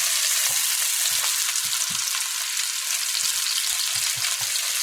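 Chopped onions sizzling steadily in hot oil in a frying pan, just added, with light scrapes and knocks of a spoon stirring them.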